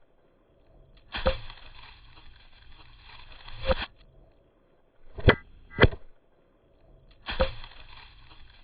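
Wood being chopped: five sharp chopping strikes, two of them in quick succession near the middle.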